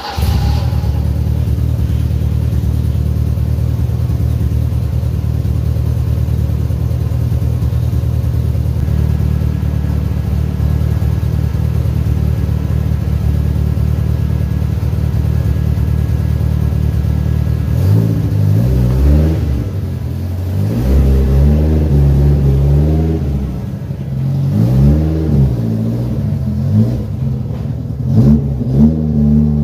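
The BMW E30-sourced engine of an Opel Manta A project car is running. It holds a steady idle for most of the first two-thirds, then revs rise and fall in repeated blips as the car pulls away on its first test drive.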